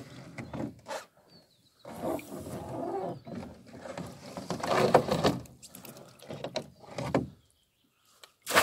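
Lake water sloshing and splashing in irregular surges as a wire-mesh fish trap is shaken at the surface, to clear it and herd the fish inside, and then lifted out. After a brief lull a short loud burst of noise comes right at the end.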